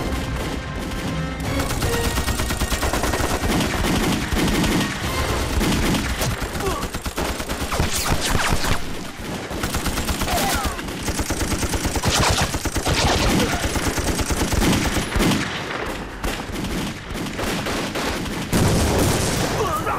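Dense gunfire in a dramatized battle: rapid machine-gun bursts mixed with rifle shots, going on without a break.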